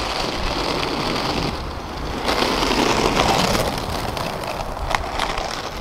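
Skateboard wheels rolling over rough tarmac: a steady rolling noise that grows louder about two seconds in as the board passes close, then eases off toward the end.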